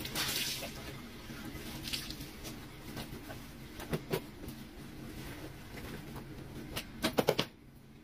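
Wet clothing being scrubbed, squeezed and moved by hand on a concrete washboard sink, with soft water sounds and occasional clicks and slaps.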